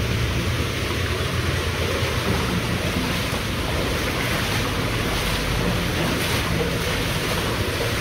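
Water rushing steadily along the bottom of a corrugated metal drain culvert pipe.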